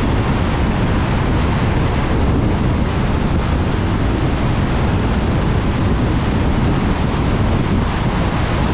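Steady rumble and hiss of a car driving on a wet road in the rain: tyre spray and road noise with no change in pace.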